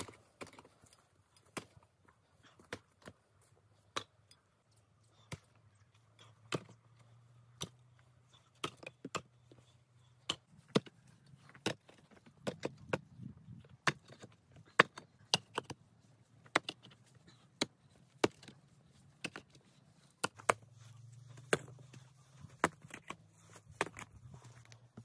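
Stones clacking and knocking against each other as rocks are set and shifted on a dry-stone wall: irregular sharp knocks, often one or two a second.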